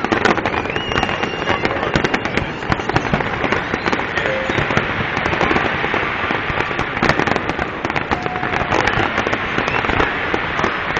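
Fireworks display in full barrage: rapid, overlapping bangs and crackling with no break.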